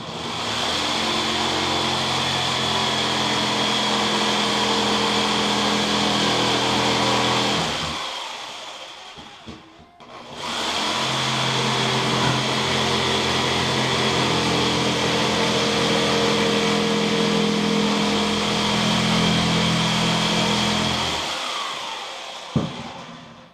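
Jigsaw cutting a thick piece of plastic water-main pipe, in two runs of about eight and eleven seconds with a short pause between, each winding down as the trigger is let go. A single sharp click near the end.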